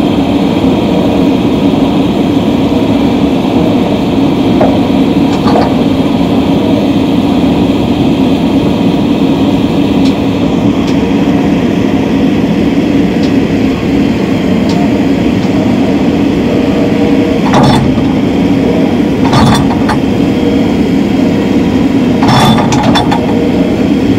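Excavator's diesel engine running steadily close by while it holds a Bailey bridge deck raised. A few sharp knocks and clinks come in the last third, as timber blocks are set under the deck.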